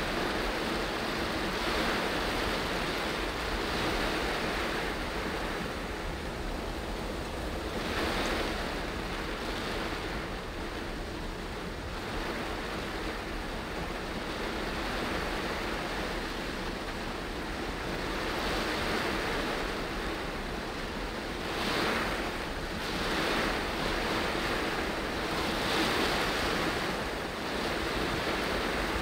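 Heavy rain and wet-road noise heard from inside a moving car: rain on the windscreen and roof and tyres hissing through standing water make a steady rush that swells every couple of seconds.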